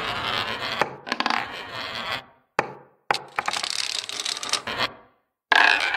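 Sound effects of toppling dominoes clattering: quick runs of sharp clicks in several bursts, with short gaps between them.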